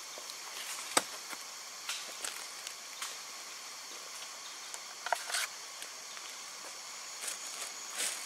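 Steady high-pitched drone of forest insects, with scattered clicks and rustles of gear being handled. A sharp click about a second in is the loudest sound, and a plastic bag rustles near the end.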